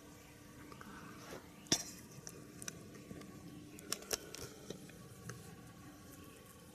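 A few light, sharp clicks and taps from the handheld airhorn's plastic horn and metal canister being moved about: the loudest about two seconds in, and two more close together around four seconds. A faint steady hum underneath; the horn itself is not sounded.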